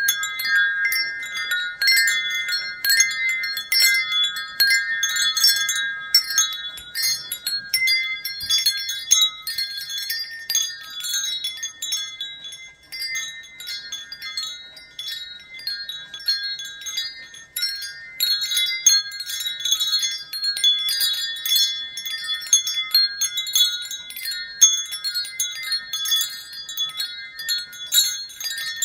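Wind chimes ringing, many high tones struck irregularly and overlapping in a continuous jangle; the lower notes drop out for a while in the middle and then return.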